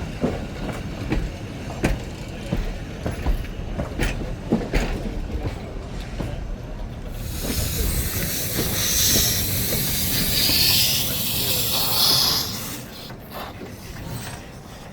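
Steam locomotive letting off a loud hiss of steam for about five seconds, which stops suddenly. Before it, a low rumble with irregular knocks and clanks.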